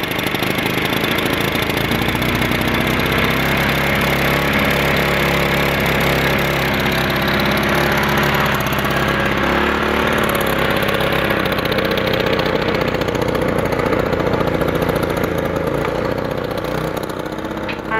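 Push lawn mower's small OHC engine running steadily, revived after sitting under floodwater for days, easing off as the sound fades near the end.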